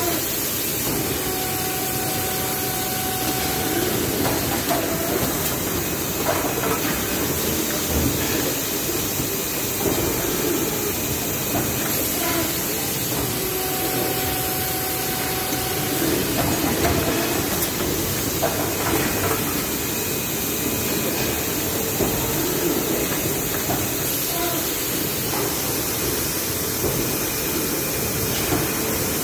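NPC400H injection moulding machine and Sepro take-out robot running in production: a steady, loud hiss of machinery, with a short steady tone and a few knocks coming round again about every twelve seconds as the moulding cycle repeats.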